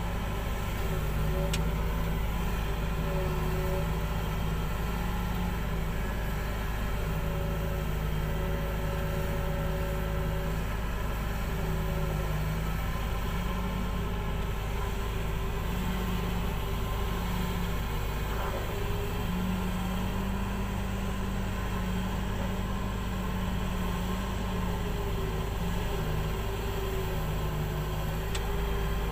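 Komatsu PC2000 hydraulic mining excavator's V12 diesel engine running steadily under a constant low rumble. Its pitch steps up and down every few seconds as the load from the hydraulics changes while the machine swings.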